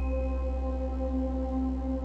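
Background music: a slow ambient piece of held tones over a low drone.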